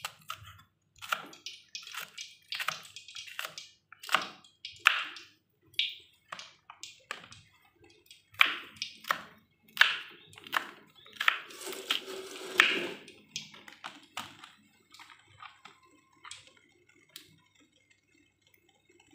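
Kitchen knife slicing red chillies on a wooden cutting board: a quick, uneven run of crisp chops and taps of blade on wood, thinning to a few faint clicks about three-quarters of the way through.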